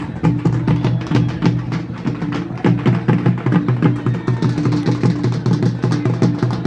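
Music of fast, even drumming, many strokes a second, over a steady low tone.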